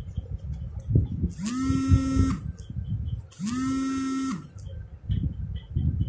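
A small electric motor buzzing twice, each run lasting about a second. Each time its pitch rises as it spins up, holds steady, and drops as it stops.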